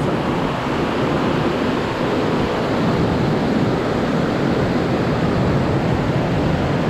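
Steady rushing of the water cascading down Horsetail Falls, an even, unbroken roar of white water.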